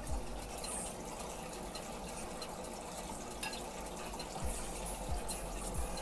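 Aquarium water running steadily, with a few soft low thumps in the second half.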